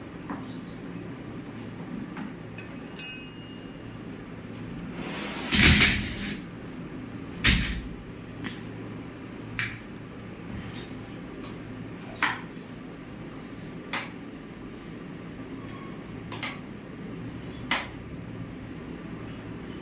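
A series of separate knocks and clunks over a steady low hum. The loudest is a longer clatter about six seconds in, followed by a sharp knock; a brief high clink comes about three seconds in.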